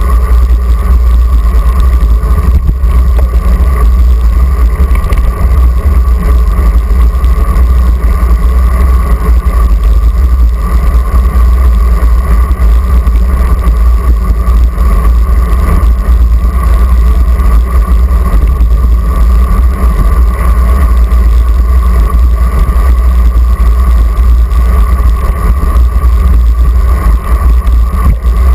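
Loud, steady wind buffeting the microphone of a handlebar-mounted action camera on a moving road bike, mostly a heavy low rumble, with the hiss of tyres on asphalt.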